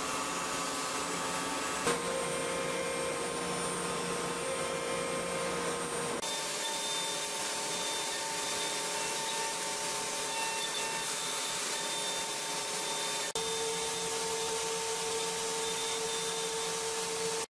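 CNC machining center milling a metal mold core with a long tapered end mill under coolant spray: a steady hiss with several steady whining tones, whose pitches change abruptly about two, six and thirteen seconds in.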